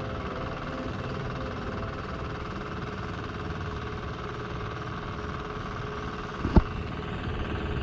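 Steady low rumbling background noise with one sharp knock about six and a half seconds in.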